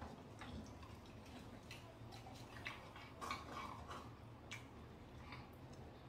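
Faint, irregular clicks and taps of chopsticks picking through a pot of pork-bone stew, with a few louder taps about three seconds in, over a low steady hum.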